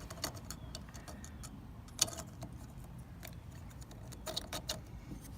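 Light clicks and taps of small parts being handled on a kayak pedal drive's propeller shaft as the drive pin is refitted, with a sharper knock about two seconds in and a quick run of clicks near the end.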